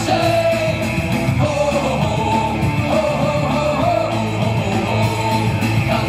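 Rock-style baseball cheer song, a sung melody over a full backing band, playing loud and steady.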